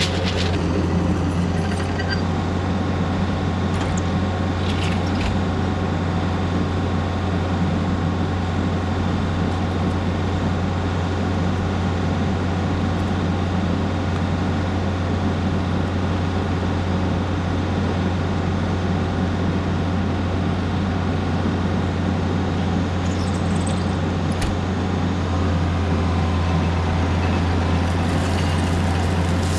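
Diesel engine of a Takeuchi earthmoving machine running steadily under work, a constant low drone, with a few light clanks and a slight rise in engine note about 25 seconds in.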